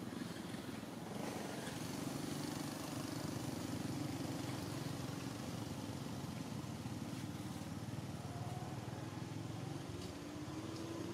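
An engine running steadily, a low drone that rises in pitch near the end.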